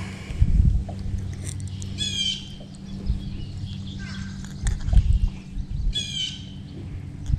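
A bird calling twice, about half a second each time and four seconds apart, over a steady low hum, with a couple of low thumps.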